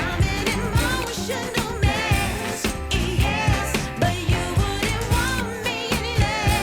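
Background pop song with a female-style sung melody over a steady drum beat.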